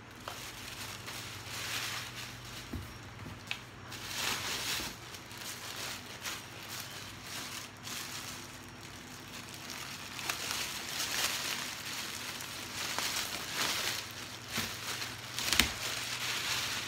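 Plastic packaging crinkling and rustling in irregular bursts as wrapped goods are rummaged through and unpacked, with a sharp knock near the end.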